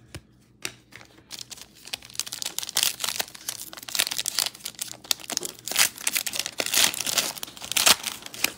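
Foil wrapper of a 2021 Absolute Football trading-card pack being torn open and pulled apart by hand: a run of crinkling, crackling rustles that starts about a second in.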